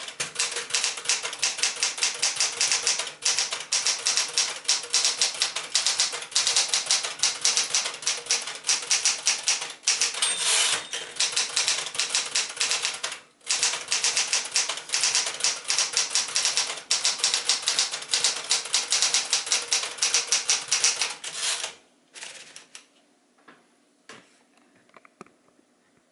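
1975 Smith-Corona Galaxie Twelve manual portable typewriter being typed on: a fast, steady run of keystrokes with a few short pauses. The typing stops about three-quarters of the way through, leaving only a few faint clicks.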